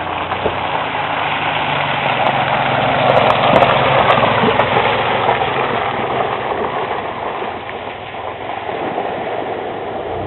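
1992 Ford Explorer's 4.0-litre V6 running as the SUV drives across mud, with a steady low engine hum under a rushing noise that swells to its loudest about four seconds in, then fades as the vehicle pulls away.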